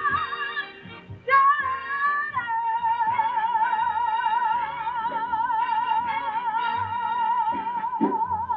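A woman singing a slow blues: a couple of short rising phrases, then one long high note held with a wide vibrato for about six seconds, over a soft band accompaniment.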